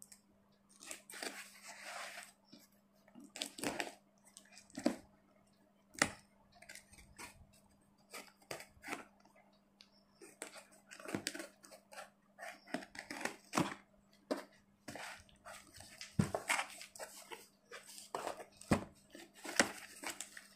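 Hands peeling packing tape off a cardboard parcel and tearing open its flaps: irregular rustling, crinkling and sharp cardboard and tape clicks.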